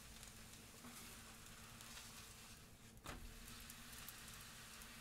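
Faint sizzling of a crepe cooking on the hot plate of a Proctor Silex 13-inch electric crepe maker, with a single light tap about three seconds in.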